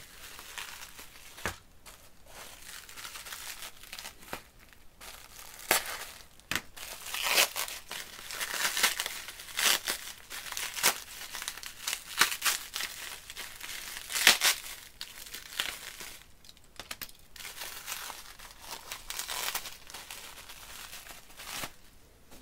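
Plastic bubble wrap crinkling and rustling as it is unwrapped from toy trains by hand, with sharp crackles throughout.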